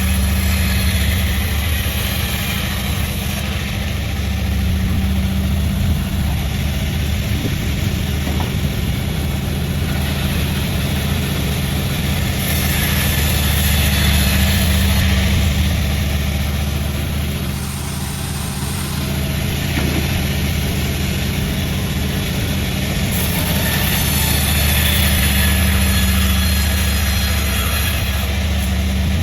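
Sawmill machinery running: a steady low engine drone, with a higher hissing sound that swells up and fades a few times, as the saw works through wadang wood.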